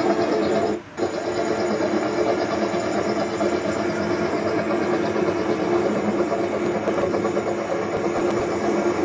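Helicopter noise: a steady drone of the rotor blades and engine, with a brief dropout about a second in.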